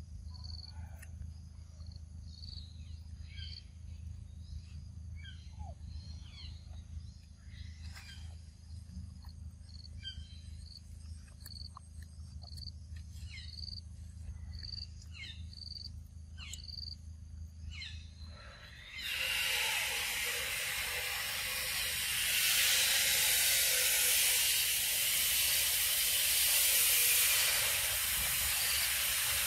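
Scattered short chirping calls over a low steady rumble. About two-thirds of the way in, a loud steady hiss starts suddenly and covers them.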